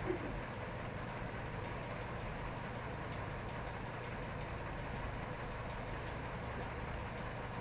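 A steady low hum with an even hiss, unchanging throughout, with one faint tick just after the start.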